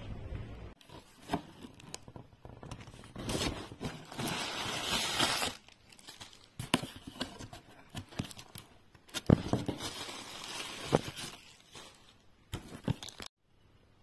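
Cardboard parcel box being opened by hand, with the plastic wrapping inside rustled and torn: tearing and crinkling in two longer bursts, with sharp clicks and scrapes between them.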